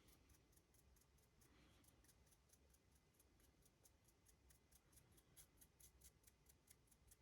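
Near silence: room tone with very faint, rapid, evenly spaced ticks.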